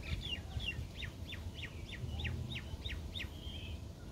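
A songbird singing a quick series of about ten clear whistled notes, each sliding downward in pitch, about three a second, ending a little after three seconds in.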